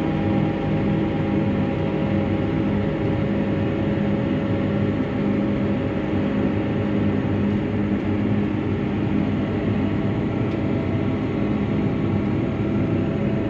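Claas Arion 650 tractor's six-cylinder diesel engine running at a steady speed on the road, heard from inside the cab. There is no change in engine pitch, consistent with the tractor being held on cruise control.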